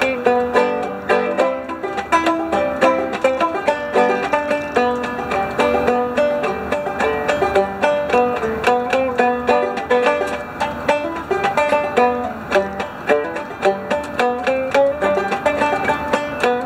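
Five-string banjo played solo, a steady, quick run of plucked notes with no singing.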